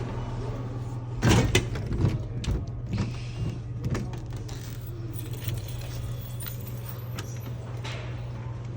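Hands working inside a coin-operated vending machine: a run of sharp metallic clicks and clinks about one to four seconds in, over a steady low hum.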